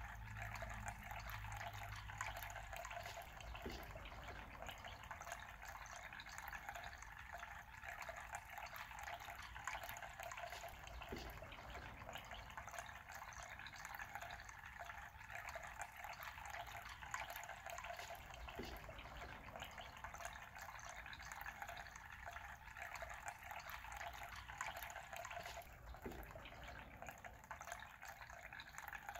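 Faint, steady rushing noise with no clear source, with a faint short blip about every seven to eight seconds.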